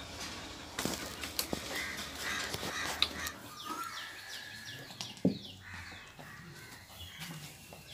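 Lhasa Apso puppies play-fighting: scuffling with scattered sharp knocks, the loudest about three and five seconds in. A quick run of short, high, falling calls comes about halfway through.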